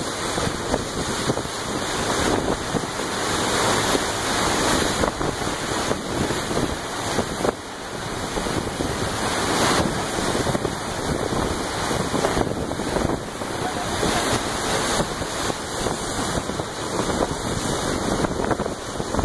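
Wind buffeting the microphone over the steady rush of water along a moving boat's hull.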